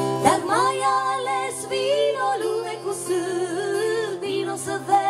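A woman singing a slow folk-song melody over acoustic guitar chords; the voice comes in just after the start and carries on with held, wavering notes.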